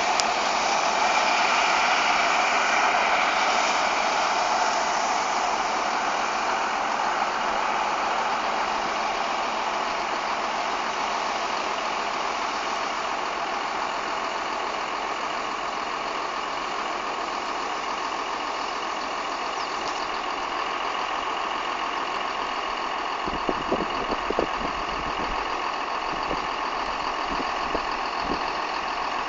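Heavy farm machinery running at a steady drone during wheat harvesting, with a few knocks about three-quarters of the way through.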